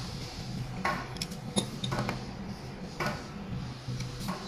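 Light clicks and clinks of small metal parts as a spray gun is taken apart by hand, while its needle is drawn out and parts are set down. The clicks come irregularly, several close together in the first half.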